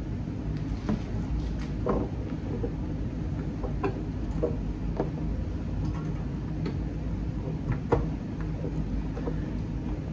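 Scattered light clicks and knocks of an HID headlight bulb and plastic headlight parts being handled and fitted into the back of an Audi Q5 headlight housing, over a steady low background hum.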